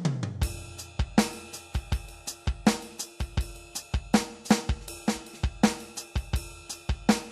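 Alesis Command Mesh electronic drum kit played in a steady groove: kick, snare, hi-hat and cymbal sounds, with a loud backbeat hit about every three-quarters of a second. A low drum hit right at the start sinks in pitch as it rings out.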